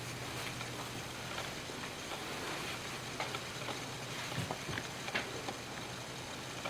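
Quiet room tone: steady hiss with a low hum underneath, broken by a few faint scattered clicks and taps.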